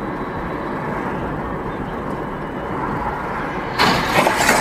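Steady road and engine noise inside a moving car. About four seconds in, a sudden loud crash and clatter comes from a vehicle collision on the road ahead.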